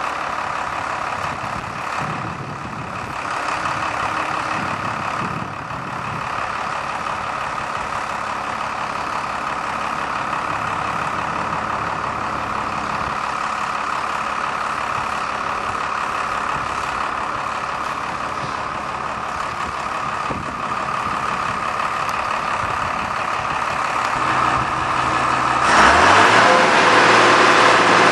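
Sierra RB 6000 baler/logger's 5.9-litre six-cylinder Cummins turbo diesel running steadily. About two seconds before the end it revs up and gets louder.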